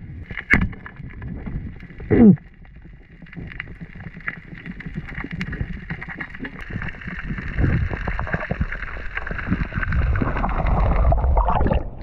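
Muffled underwater rushing and rumbling of water against a diver's camera housing as a freediver swims with fins, growing louder as he kicks up toward the surface. There is a sharp knock about half a second in and a short downward-gliding tone about two seconds in.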